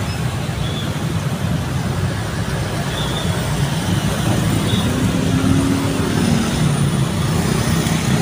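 Busy city road traffic: a steady rumble of cars and motorcycles running past, with one engine's hum standing out for a couple of seconds in the second half.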